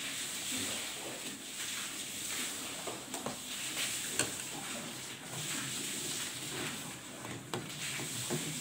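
A metal spoon stirring coconut milk in a stainless steel pot, giving a few light clinks against the pot, over a steady hiss of the liquid heating on the stove toward the boil.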